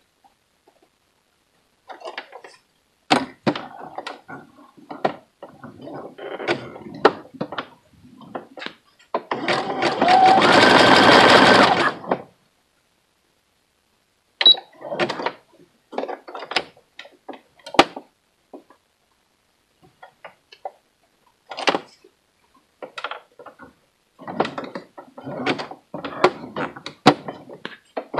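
Sewing machine running one short burst of zigzag bar-tack stitching, about three seconds long and starting around nine seconds in. Before and after it come scattered light clicks and knocks from the handwheel being turned by hand and the fabric being shifted, a check that the needle swing clears the foot.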